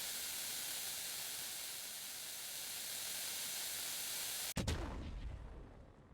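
Firework hissing steadily for about four and a half seconds, then going off with a single sharp bang and a deep boom that dies away over a second or so.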